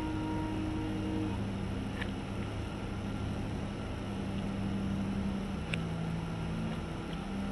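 Slow ambient background music: long held low notes that shift pitch every few seconds over a steady low drone, with a couple of faint clicks.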